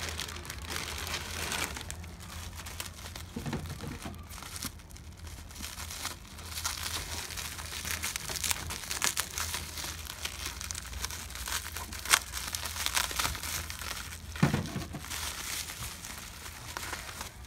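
Packaging crinkling and rustling as it is handled and unwrapped, with many small crackles. There are two sharper snaps or rips in the last third.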